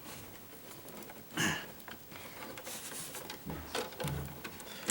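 Irregular handling noises as stiff electrical wires are pushed and worked into a wall switch box: scraping and rustling, with one louder scrape about a second and a half in and some low bumps near the end.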